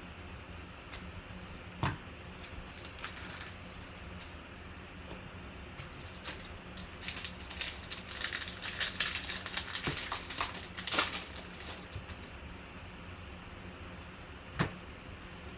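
Trading cards and card packs being handled: scattered sharp clicks, with a dense crackling rustle from about 7 to 11 seconds in, over a steady low electrical hum.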